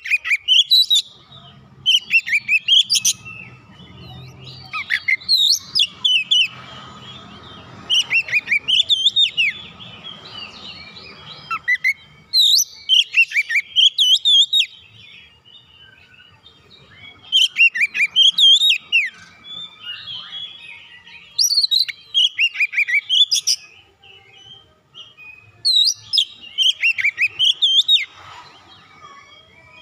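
Oriental magpie-robin singing: loud phrases of quick, sliding whistled notes, delivered in bursts every second or two with short pauses between them.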